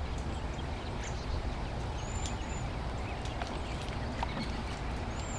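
Waxwings giving thin, very high whistled calls, a few short ones about two seconds in and another near the end, among scattered faint clicks of holly berries dropping through the leaves as the birds feed. A steady low rumble sits under it all.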